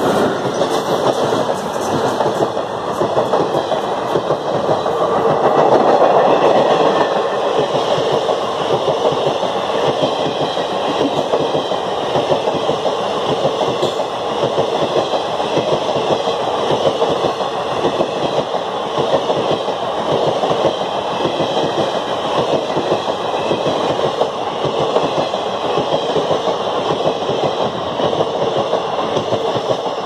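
Indian Railways freight train passing close by: a WAG-5 electric locomotive followed by a long rake of NMG (converted-coach car-carrier) wagons, with steady, loud rumble and rapid clatter of steel wheels over the rails.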